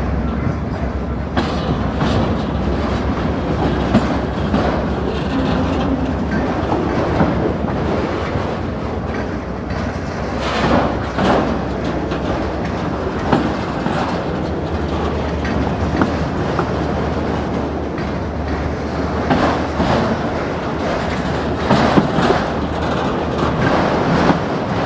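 Autorack freight cars rolling past on the spur: steel wheels running on the rails with a steady rumble and scattered clicks and clanks, a few louder knocks among them.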